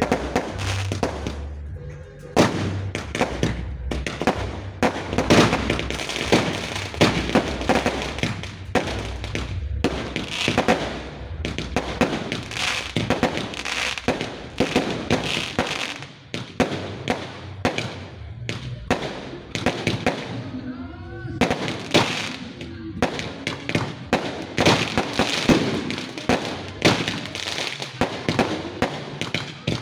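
Fireworks and firecrackers going off in a dense, continuous run of sharp cracks and bangs, many a second.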